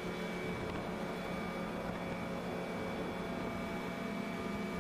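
Steady machinery drone of a ship's engines: a constant low hum with a thin high whine above it, over an even hiss.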